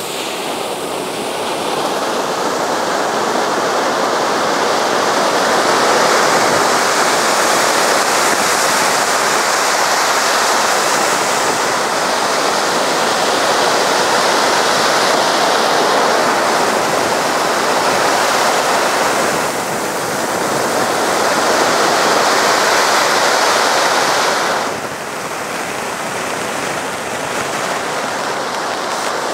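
Three ground fountain fireworks (volcanoes) burning together, spraying sparks with a loud, steady hiss like rushing water. The hiss dips briefly about twenty seconds in and drops to a lower level near twenty-five seconds.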